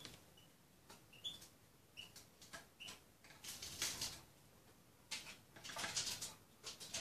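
Small songbird giving four short high chirps in the first three seconds, then bursts of clicking and crackling as it pecks at grated carrot in a glass bowl, around the middle and again near the end.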